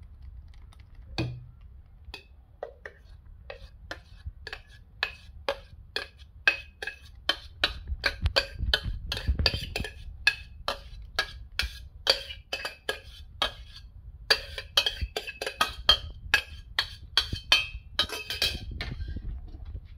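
Metal spoon scraping and knocking against the inside of a stainless-steel pot as thick apple filling is scooped out: a run of short metallic clicks with a slight ring, a few a second, coming faster in the second half.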